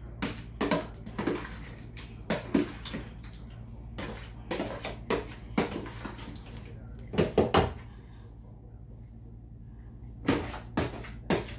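A metal spoon knocks and scrapes against a plastic basin as pieces of salmon and shrimp are stirred, in a series of irregular clacks with a pause about eight seconds in, over a steady low hum.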